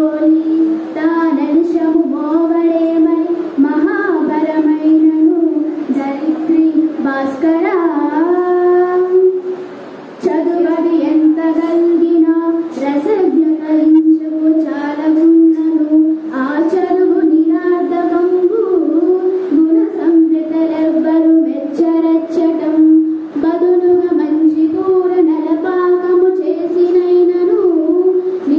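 A high voice singing a Telugu padyam (verse), held and gently bending notes in a continuous sung recitation, with one short break about ten seconds in.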